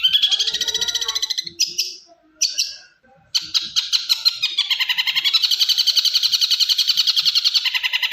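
Long-tailed shrike (cendet) singing a rapid chattering song of fast-repeated high notes, about ten a second. The song breaks off for about a second and a half in the middle, with two short bursts in the gap, then resumes.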